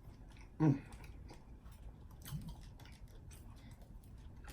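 Close-up chewing with many small crisp crunches, a mouth working on crunchy Flamin' Hot Cheetos. A short voiced hum about half a second in.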